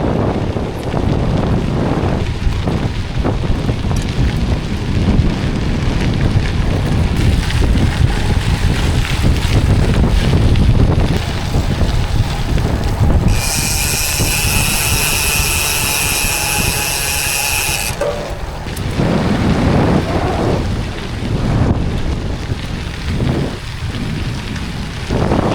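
Gravel bike tyres rolling and crunching over a gravel trail, with wind buffeting the microphone in a loud, steady rumble. In the middle a high, steady buzz joins in for about four and a half seconds, then cuts off suddenly.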